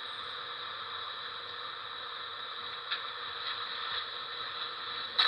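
Steady electronic static hiss from a small device's speaker, with a faint steady hum under it. It cuts off with a sharp click near the end.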